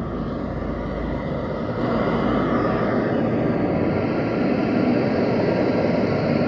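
Outdoor field recording of steady engine noise from passing motor traffic, growing louder about two seconds in.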